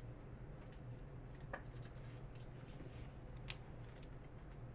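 Faint handling of trading cards: a few soft clicks and rustles as cards are slid and moved, over a steady low hum.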